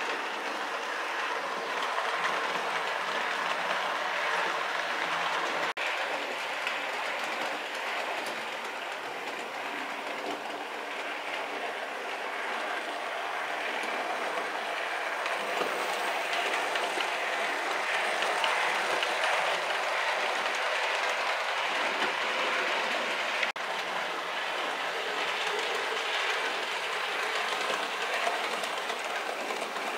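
Model railway trains running along the track: a steady running noise of small wheels and motors on the rails, with no deep rumble. It is broken by two brief cuts, about six seconds in and again near the end.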